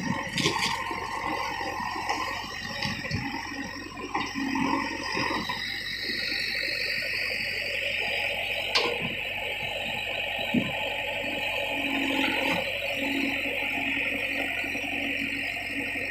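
JCB 3DX backhoe loader at work, its engine and hydraulics giving a steady rushing noise, with a couple of sharp clanks about halfway through.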